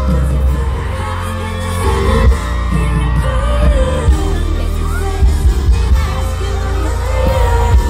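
Loud pop music with a sung melody over a heavy, steady bass beat, played through a concert sound system.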